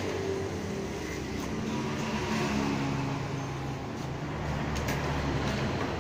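Road traffic: motor vehicle engines running, their pitch shifting up and down as they go by, with a couple of faint clicks about five seconds in.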